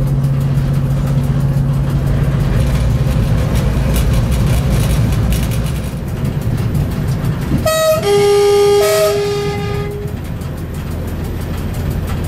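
Train running with a steady rumble, heard from the driver's cab. About eight seconds in its horn sounds: a short high note, then a lower note held about two seconds with the high note coming in briefly over it.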